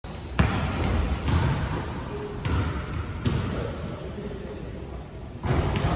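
A basketball being dribbled on a hardwood gym floor: a handful of bounces at uneven intervals, each echoing briefly in the large hall.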